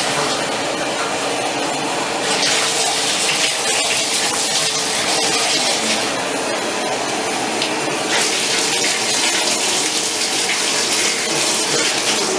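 Water running steadily from a bathtub faucet into the tub. The hiss grows brighter about two seconds in and softens again about eight seconds in.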